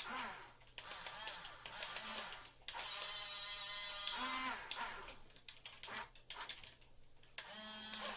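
Small electric gear motors of a 1/14-scale Top Race RC toy excavator whining in start-and-stop bursts as its arm and bucket are worked.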